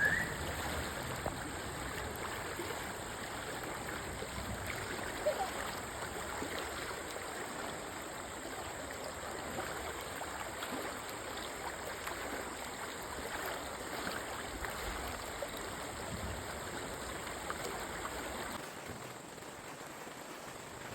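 Flowing river water running steadily, an even rushing hiss; a lower rumble under it drops away near the end.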